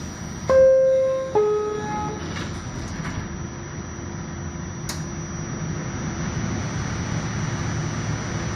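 R46 subway car's door chime: two descending electronic tones about a second in, the signal that the doors are closing. Under it runs the steady hum of the stopped train's equipment, and a sharp click comes about five seconds in.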